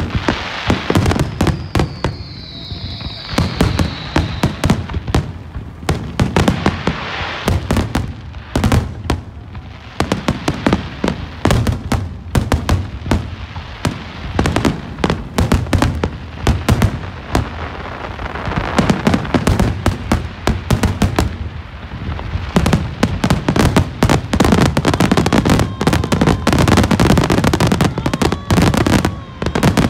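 Fireworks display: rapid, dense bangs and crackling shell bursts, with a high whistle for a few seconds about a second in. The bursts grow denser and louder in the last third.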